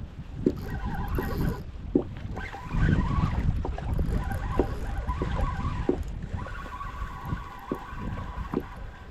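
Wind rumbling on the microphone from a kayak on the water, with a few short knocks against the hull.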